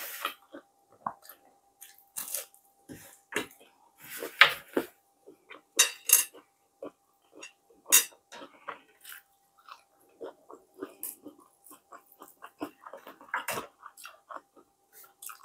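Hands tearing and picking apart a crisp fried tilapia over a plate, with the fish and fingers knocking on the plate and close-up chewing: an irregular scatter of sharp crunches, crackles and clicks. A faint steady tone sits underneath.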